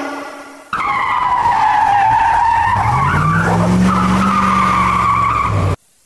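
Race car sound effect: a tyre screech over a running engine whose pitch climbs about halfway through. It starts and cuts off abruptly.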